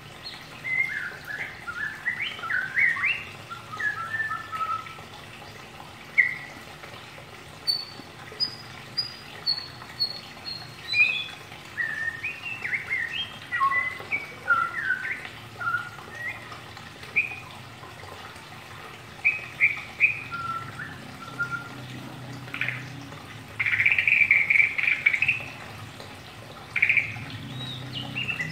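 White-rumped shama (murai batu) in ngeriwik twittering: a rambling string of short, varied chirps and rising and falling whistled notes. About two-thirds of the way through it breaks into a dense run of rapid chatter, then returns to scattered notes.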